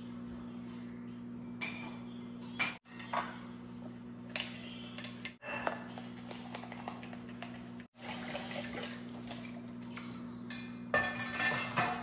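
Dishes and cutlery clinking and clattering as they are handled, with a denser run of clatter near the end, over a steady low hum. The sound drops out for a split second a few times.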